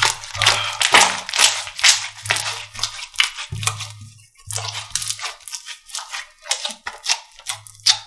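Slime being squeezed and poked by hand, giving a fast, irregular run of sharp crackles, clicks and pops.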